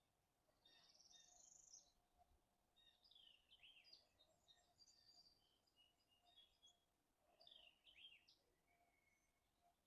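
Faint songbirds chirping and singing, many short calls and quick sweeping notes overlapping, over a quiet outdoor background.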